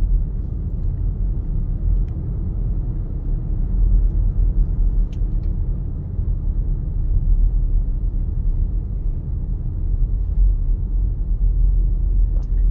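Low, steady road and tyre rumble inside the cabin of a NIO electric SUV driving at town speed, with no engine sound, and a few faint clicks.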